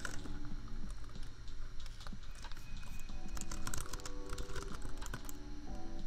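Typing on a computer keyboard: irregular runs of key clicks over soft lofi background music, with a steady low laptop fan hum underneath.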